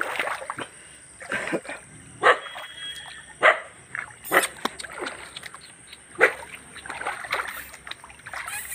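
Irregular splashes and sloshing of shallow stream water, short sharp bursts a second or so apart, as someone wades through it carrying a stone.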